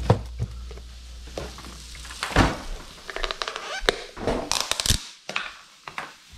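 Refrigerator door shutting with a thump about two and a half seconds in, which cuts off a low hum; then a run of light clicks and knocks as a plastic container is handled.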